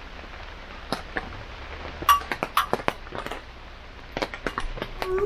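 Steady rain falling, with irregular heavy drips tapping close by. Just before the end a long wolf howl begins, its pitch rising slightly.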